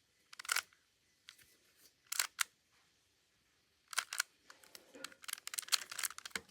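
Plastic 3x3 Rubik's Cube having its layers turned by hand as an algorithm is worked through: sharp clacks, a few single turns spaced out, then a quick run of turns near the end.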